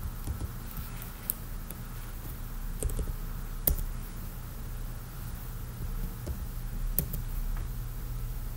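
A few scattered keystrokes on a computer keyboard over a steady low hum.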